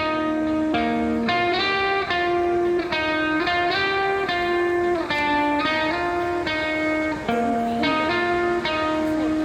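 Background music: guitar picking a repeating pattern of notes at a steady pace.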